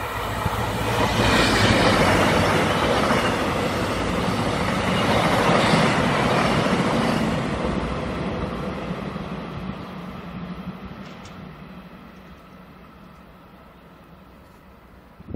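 A Korail diesel-electric locomotive hauling passenger coaches passes at speed: engine drone and wheels on rail, building over the first two seconds and staying loud until about seven seconds in, then fading steadily as the train moves away.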